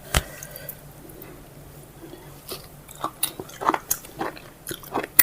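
A person chewing a mouthful of food close to the microphone: a sharp tap just after the start, then a run of short clicking chewing sounds from about halfway on.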